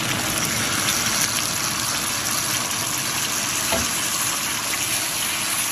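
Chili paste sizzling steadily as it fries in hot oil with shallots, lemongrass and curry leaves, the sautéing stage before the sauces go in. A single light knock comes about halfway through.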